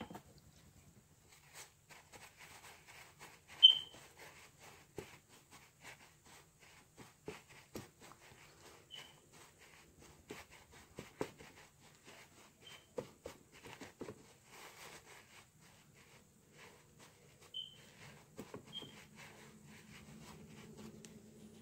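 Crumpled tissue paper dabbed repeatedly onto a stretched canvas: irregular soft taps and paper rustle. A few short high chirps break in, the loudest about four seconds in, and a faint low hum comes in near the end.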